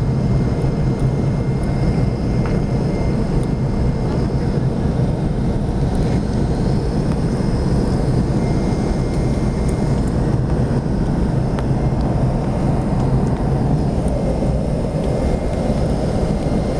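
Steady cabin noise of an aircraft in flight: engine and airflow noise, strongest as a low hum, with a few faint steady whines higher up.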